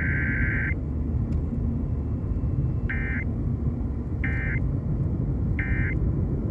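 Emergency Alert System SAME data bursts on a radio broadcast: a harsh, buzzy two-tone digital screech. One long burst ends just under a second in, then three short bursts follow about 1.3 s apart, all over a steady low rumbling static.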